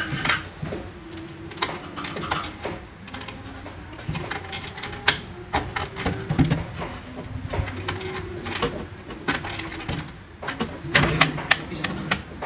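Scattered sharp clicks and light knocks from a hand working a locking cabinet drawer, its key rattling in the lock, with a quick run of clicks near the end as the drawer is pulled open.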